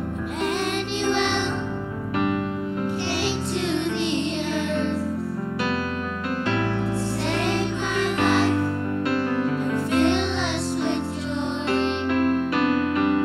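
Children's choir singing a song into microphones, with keyboard accompaniment.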